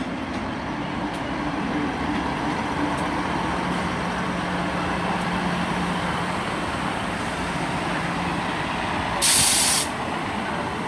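Class 158 diesel multiple unit running at the platform with a steady low engine hum, then a short loud hiss of compressed air from its air brakes about nine seconds in.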